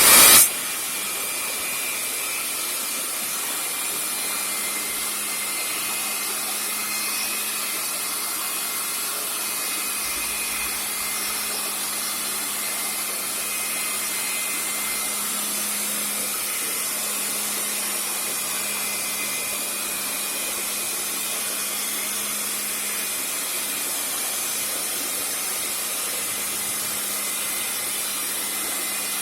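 A motor-driven machine running steadily, with a strong hiss over a low, even hum and no change in speed.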